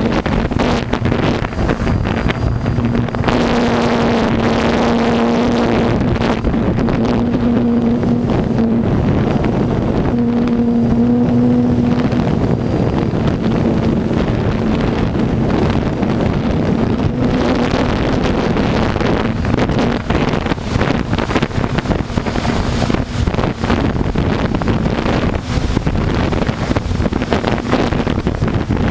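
Corn harvest machinery running steadily: a loud mechanical drone with a low hum that swells and fades several times.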